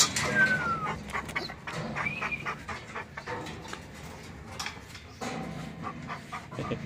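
German shepherds whining and panting: a high whine falling in pitch near the start and another short whine about two seconds in, with scattered sharp clicks.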